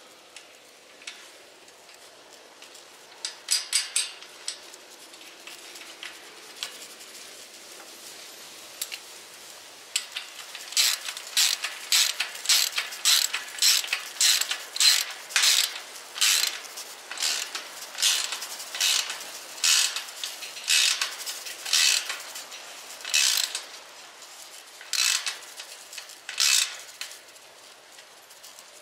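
Socket ratchet wrench with a 17mm socket clicking as it tightens the nut on a butterfly clamp bolt, a brief run of clicks first, then steady back-and-forth strokes about once or twice a second that space out near the end as the nut seats.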